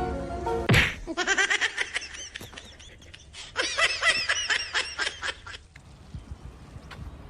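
Music cuts off with a click within the first second, then rapid high-pitched laughter comes in two quick spells of short repeated notes, the second spell louder.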